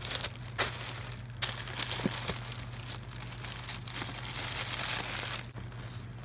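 Plastic packaging crinkling and rustling in irregular bursts as hands open and handle it, over a low steady hum.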